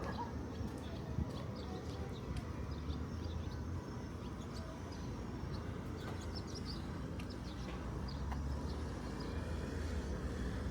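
Small birds chirping, many short high calls scattered irregularly, over a steady low rumble.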